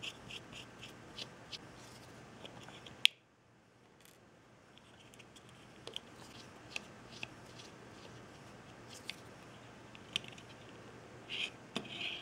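Small Phillips screwdriver backing tiny screws out of a metal microphone casing, heard as light clicks and scratches. A single sharp click about three seconds in, then scattered light clicks and handling scrapes.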